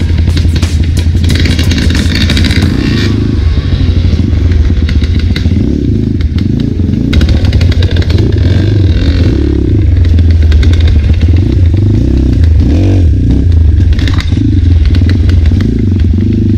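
Enduro dirt bike engine running while riding a rough trail, with frequent clattering knocks throughout.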